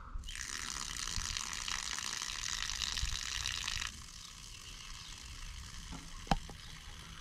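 Water jetting out of a brass hose-barb fitting at the base of a filled 5-gallon plastic bucket as a thumb comes off it, a steady hiss of spray. About four seconds in it drops off suddenly to a fainter hiss, and there is one sharp click near the end.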